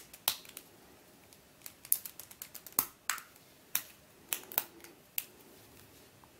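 Irregular sharp clicks and taps of fingernails and hard plastic as a cap is prised off the middle layer of an mf8 Square-1 puzzle.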